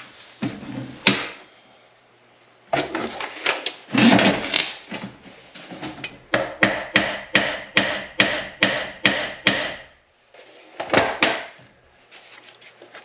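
Hammer striking metal, likely the nut welded onto a broken-off bolt to shock it loose. A few irregular knocks come first, then a steady run of about nine strikes at roughly two and a half a second, then a couple more near the end.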